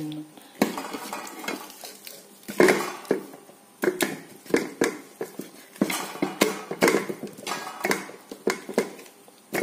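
Hand mixing raw chicken pieces into a wet tomato-and-onion marinade in a bowl, with irregular knocks and scrapes as the pieces are pressed and turned against the bowl.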